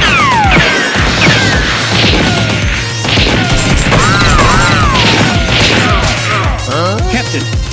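Action soundtrack music with added fight sound effects: repeated crashes and hits, and sweeping tones that fall in pitch, with a couple of arching ones in the middle.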